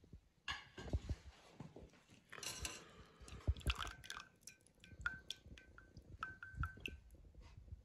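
Light metallic clicks and clinks of a stainless steel mesh strainer against a steel pot as mutton stock is strained through it, some clinks ringing briefly, with a short splash of liquid draining.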